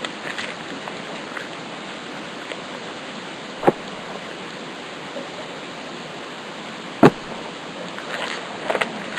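Steady hiss with two sharp clicks about three and a half seconds apart and faint rustling near the end, from a stack of trading cards being flipped through by hand.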